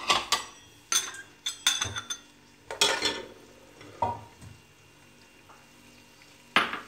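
Spoon and slotted metal spatula scraping and tapping against an aluminium pressure cooker as ginger-garlic paste goes into the oil and is stirred. There are several separate scrapes and knocks, the longest about three seconds in, with faint frying between them.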